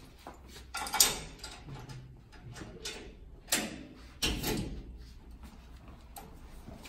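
A barred metal cell gate being unlocked and pulled open. A sharp metallic clank comes about a second in, then more clanks and rattles around three and a half and four seconds in.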